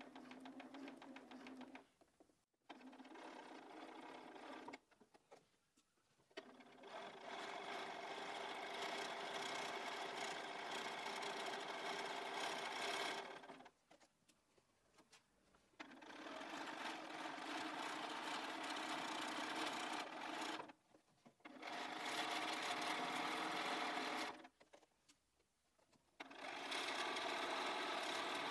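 Bernina 570 QE sewing machine stitching a zip onto fabric with its zipper foot at a gentle speed. It runs in six spells of a few seconds each, stopping and restarting between them.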